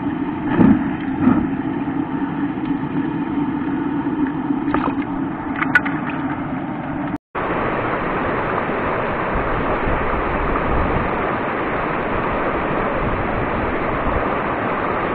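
Mountain river rapids rushing over boulders, a dense steady roar of water that starts after a cut about seven seconds in. Before the cut, a steady low hum with a few short knocks.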